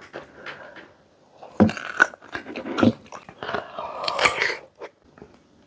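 Close-up bites and crunchy chewing of a crisp unripe green mango slice coated in wet shrimp paste, coming as irregular crackling crunches from about a second and a half in.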